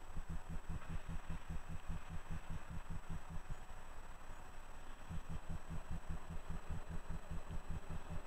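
Low mechanical throbbing, about four to five even pulses a second, that weakens for a moment in the middle and then returns.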